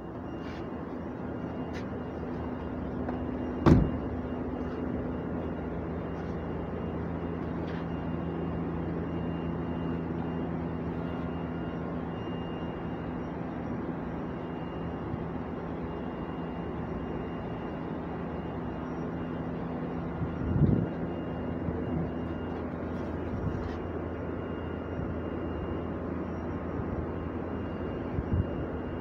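Honda B16A 1.6-litre DOHC VTEC four-cylinder, swapped into an older Honda Civic, idling steadily. A sharp knock about four seconds in and a few softer knocks later on.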